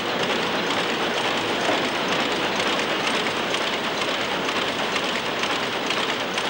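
Machinery clattering steadily: a loud, dense rattle of fast, fine clicks that does not let up.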